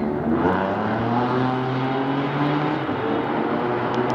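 A vehicle engine running with a steady hum that rises slightly in pitch, over the general noise of city traffic.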